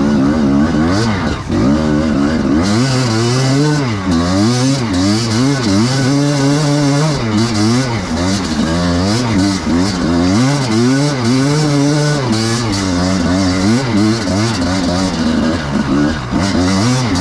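Enduro motorcycle engine being ridden hard, revving up and falling back again and again, its pitch rising and dropping every second or so with the throttle.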